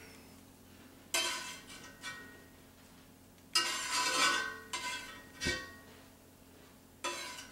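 A cooking utensil scraping and clinking against a frying pan as Brussels sprouts are scooped out into a bowl. There are about four separate scoops, each with a short ringing clang, and one dull knock between the last two.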